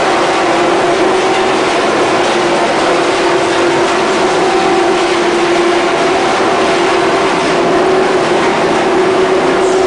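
Ball-fiber pillow filling machine running, its blower giving a loud, steady rush of air with a constant-pitch hum through the flexible ducts.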